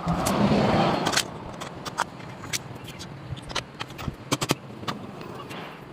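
Parts and hand tools being handled while a stone cutter is taken apart and reassembled: a scraping rush lasting about a second, then scattered sharp metallic clicks and taps.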